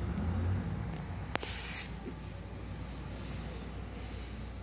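A multimeter's continuity beeper holds a steady high-pitched tone while the motorcycle's side stand switch is closed, then cuts off near the end as the stand swings and the switch opens. About a second and a half in there is a sharp click with a brief rustle.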